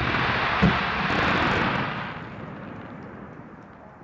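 Fireworks display at full barrage: a dense, continuous rush of shell bursts and comets with one sharp bang about half a second in, then dying away over the last two seconds as the barrage ends.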